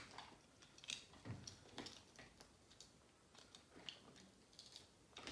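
Faint, scattered clicks and taps of small plastic toys being handled, at an irregular pace.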